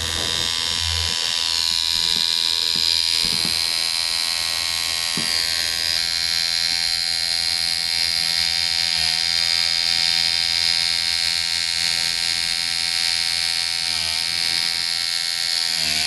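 Dragonfly X2 rotary tattoo machine running at 9 volts with its give screw turned fully down: a steady electric buzz with no give, the machine hitting hard.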